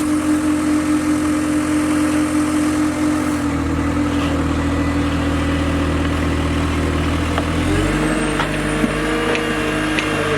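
Caterpillar 257B2 compact track loader's diesel engine running under load while it climbs onto a trailer. The engine note drops about a third of the way in and shifts again near the end, and a few light knocks come near the end.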